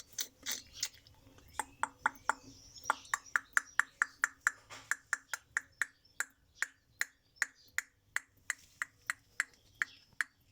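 Dove pecking at food, its beak making a steady run of sharp taps, about three to four a second.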